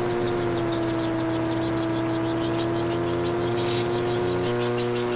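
Gyroplane's engine idling with a steady hum while the spinning rotor blades swish in a fast, even rhythm, as it rolls out on the runway after landing. The hum steps slightly in pitch about four and a half seconds in.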